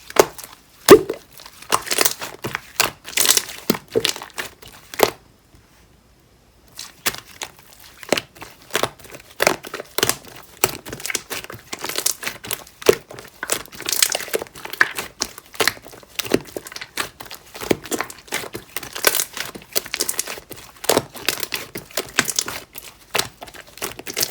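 Pink clear slime mixed with shaving foam being squished and pressed by hand, giving rapid, irregular sticky crackles and popping clicks. It stops for about two seconds about five seconds in, then carries on.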